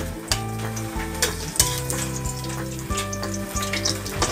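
Whole garlic cloves sizzling in hot cooking oil in a wok, a steady frying hiss broken by frequent sharp crackles and pops.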